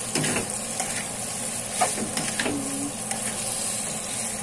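Chicken pieces and ginger slices sizzling in hot oil in a wok, with a steady frying hiss. A spatula scrapes and knocks against the pan a few times as they are stirred.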